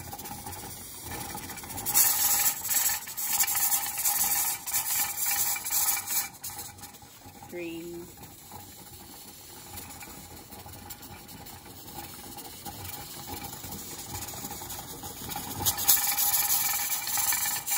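Weighted pressure regulator on a Mirro 22-quart pressure canner jiggling and venting steam with a rattling hiss, twice: about two seconds in for several seconds, and again briefly near the end. Jiggling at this slow rate shows the canner is holding its processing pressure on reduced heat.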